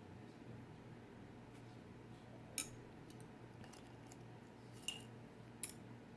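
Quiet room tone with a steady low hum, broken by three short, sharp clicks a couple of seconds apart and a few fainter ticks.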